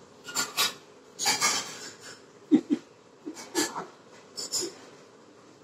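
A person's breath in two short huffs, then about five brief, low voiced sounds in the second half.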